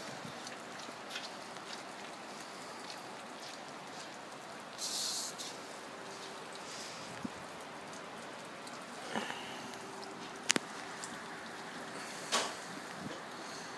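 Quiet, steady outdoor hiss with a few scattered clicks and short taps, the sharpest about ten and a half seconds in.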